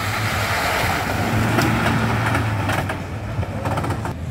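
Ford Ranger Raptor pickup's 2.0-litre twin-turbo diesel engine running steadily under load as the truck drives through mud and over dirt, with tyre and mud-splash noise over the engine hum. Scattered sharp clicks come about halfway through and again near the end.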